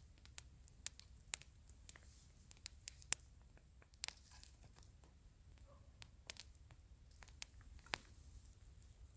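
Campfire wood crackling: faint, irregular sharp pops and snaps, a few louder ones about three and four seconds in.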